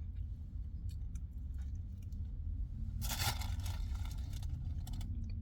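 Steady low rumble of a car cabin, with a few small clicks and a brief rustle of paper wrapping about three seconds in.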